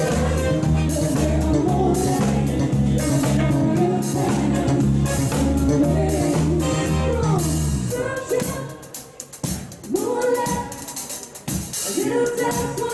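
Live pop band playing on keyboards with drums and bass. About eight seconds in, the bass and drums drop away and a woman's voice sings over lighter backing.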